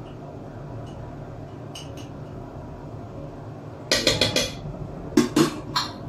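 Small metal spoon clinking against a glass jar as ground pepper is scooped out and tapped into the cooking pot. A few faint ticks come first, then a quick run of clinks about four seconds in and a few more near the end, over a steady low hum.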